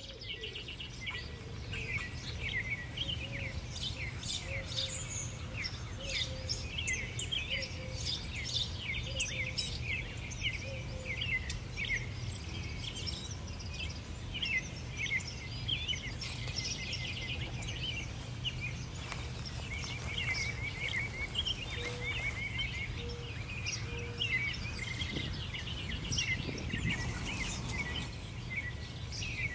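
Many small birds chirping and twittering in a busy chorus over a steady low outdoor rumble, with a softer, lower note repeated in short runs twice.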